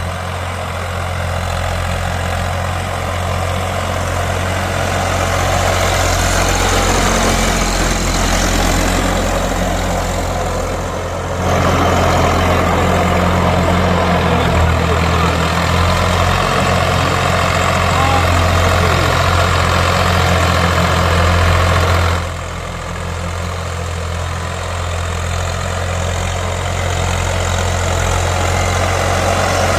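Engine of a tilling machine running steadily while working a field. It grows louder about a third of the way in and drops back about two-thirds of the way through.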